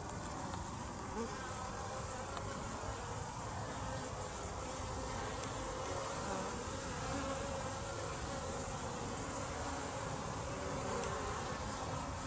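Honeybees buzzing in flight around their hive entrances on a winter cleansing flight: a steady hum of many wings, wavering slightly in pitch.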